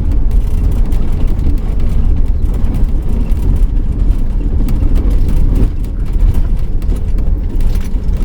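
Camper van driving on a desert road, heard from inside the cab: a steady engine and tyre rumble with frequent small rattles and knocks.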